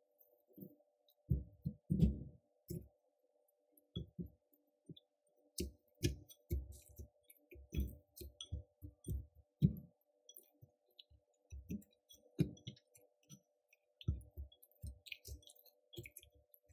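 Wooden chopsticks stirring and tossing a thick batter of shredded cabbage and carrot in a ceramic bowl: irregular dull thumps with soft clicks against the bowl, over a faint steady hum.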